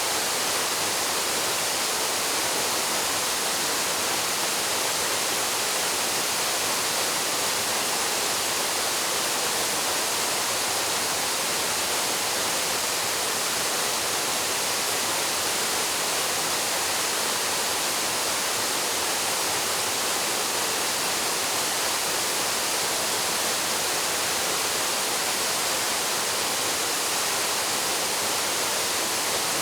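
Paraeso Falls, a mountain waterfall, pouring steadily: an even, unbroken rush of falling water, strongest in its high hiss.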